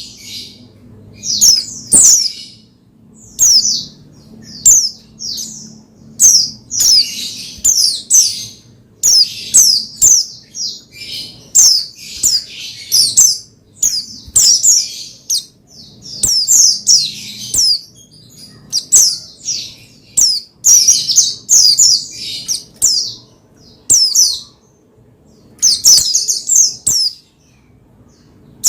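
White-eye (pleci) singing in rapid, energetic song: short high-pitched chirping phrases with fast sweeps, repeated every second or two with brief pauses.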